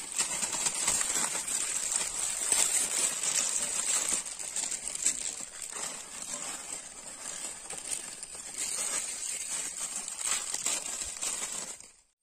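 Plastic Maggi instant-noodle packets crinkling as they are handled, torn open and emptied into a pan: a busy, continuous run of crackles that cuts off suddenly near the end.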